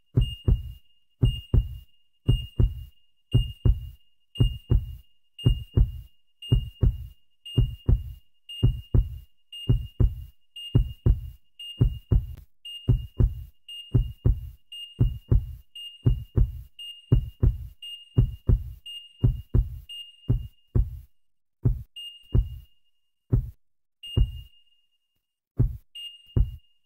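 Heartbeat sound effect: a low double thump about once a second, each with a short high beep like a heart monitor's. In the last several seconds the beats come slower and unevenly.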